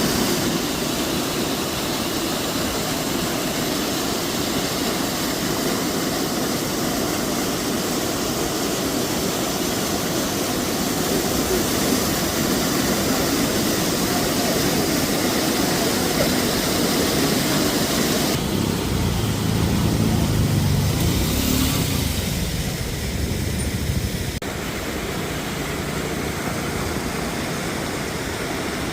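Steady roar of a swollen river in flood, rushing water with no break. About two-thirds of the way through, a deeper rumble joins in for several seconds, and then the roar carries on slightly quieter.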